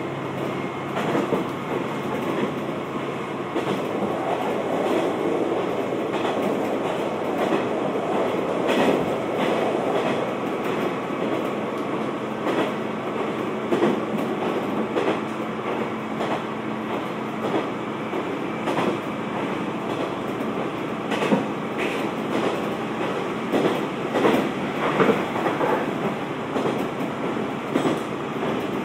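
Kanto Railway KiHa 2200-series diesel railcar heard from inside the passenger cabin while running on the line: a steady rumble of the engine and wheels on the rails, with irregular clacks as the wheels pass over rail joints, more of them in the second half.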